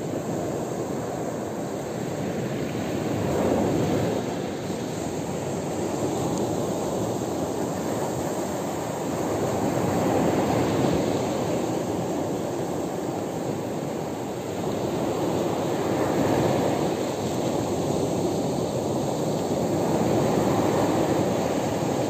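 Small sea waves breaking and washing up a pebble beach: a continuous surf rush that swells and eases every few seconds.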